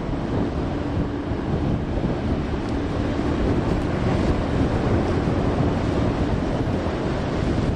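Wind buffeting the microphone over the steady wash of ocean waves at an inlet, a dense rush heaviest in the low end.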